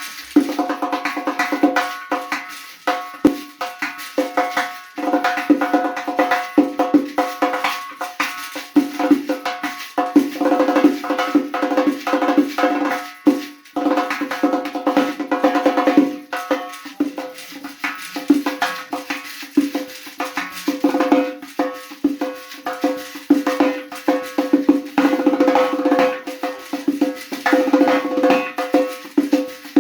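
Doira, the Central Asian frame drum, fitted with a Remo synthetic head, played in fast, dense rhythmic strokes. The head rings with a clear pitched tone under the strikes.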